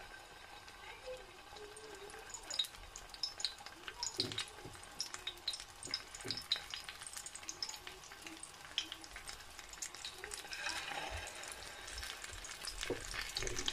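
Egg-coated chicken-mince and potato kebabs shallow-frying in hot oil: a light, steady sizzle with scattered sharp pops and crackles. It grows fuller near the end, once a second kebab is in the oil.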